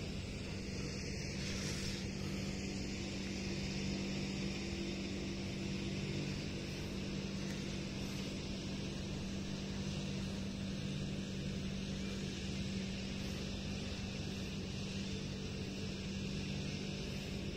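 Motor of a grass trimmer running at a steady speed, a constant engine drone that holds one pitch without revving.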